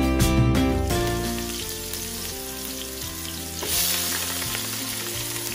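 Hot oil sizzling in a pot, with a louder burst of sizzle a little past halfway as chopped onion is tipped into the oil, then stirred.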